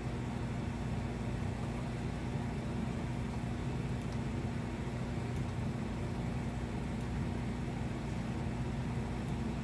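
A steady low hum with a constant noisy rumble underneath and a few faint clicks.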